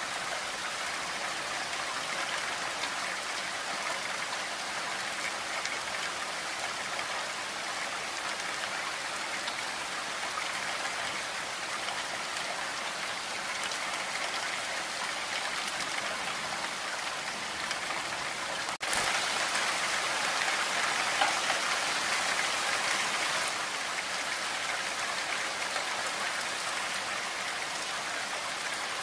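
Heavy rain falling steadily in a dense, even hiss. About two-thirds of the way through it breaks off for an instant and comes back louder for a few seconds before settling again.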